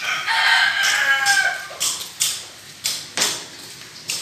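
A rooster crowing once, a long call that drops in pitch at its end, followed by a string of sharp taps about three a second.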